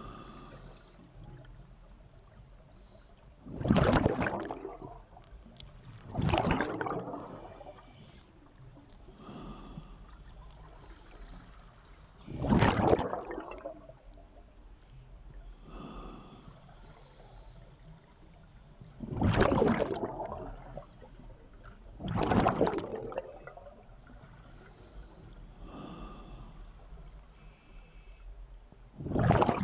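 Scuba diver breathing underwater through an open-circuit regulator: about six loud bubbling bursts of exhaled air, each about a second long, with quieter inhalation hisses between them.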